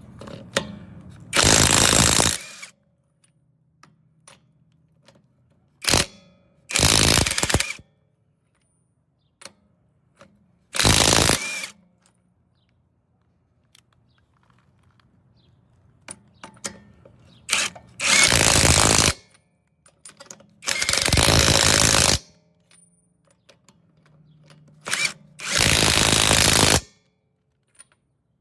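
AOBEN 21V cordless impact wrench triggered in about six short bursts of roughly a second each, with quiet gaps and a few clicks between.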